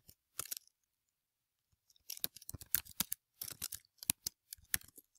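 Typing on a computer keyboard: a few separate keystrokes at first, then quick runs of key clicks from about two seconds in.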